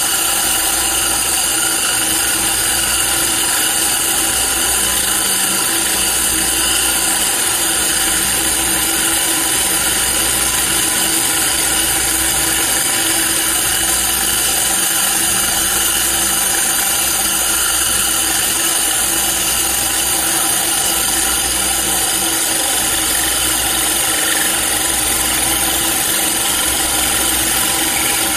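Handheld electric core drill running steadily, its diamond core bit grinding dry into granite, with compressed air hissing from a blow gun that clears the stone dust from the cut.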